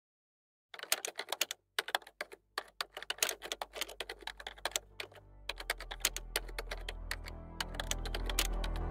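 Computer keyboard typing sound effect: rapid, irregular keystroke clicks with a couple of short pauses. Background music fades in about halfway through and grows louder under the typing.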